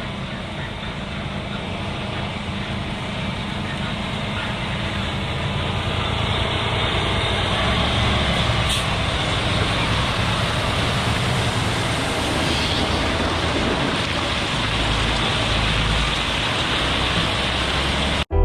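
Log truck running down the road, a steady heavy engine and road rumble that grows louder over the first few seconds and then holds. It cuts off abruptly near the end.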